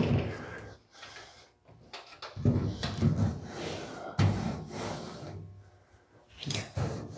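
Custom car grill of woven stainless steel mesh in a black surround being handled on a cloth-covered bench. There is a sharp knock as it is set down, then dull thumps about two and a half and four seconds in, and rubbing as a gloved hand sweeps over the mesh.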